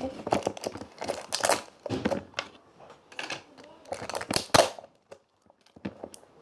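Slime being handled in its plastic container, giving a run of irregular crackling, squishing bursts that thin out near the end.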